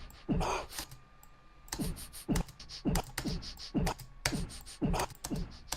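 Drum loop made from recorded coughs and sniffles playing back: low thumps that drop in pitch, a little under twice a second, with short crisp hi-hat hits made from a snotty sniff between them.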